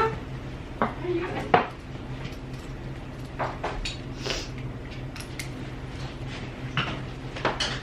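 Scattered light clicks, knocks and clinks of things being handled, over a steady low hum.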